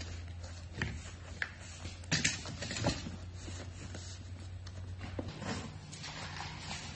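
Cardboard packaging handled by hand: a few short rustles and light knocks as a long taped cardboard package is pressed and smoothed, over a steady low hum.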